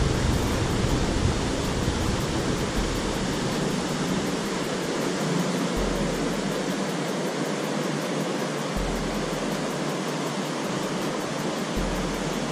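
Steady rush of water pouring through the broken shutters of a river regulator.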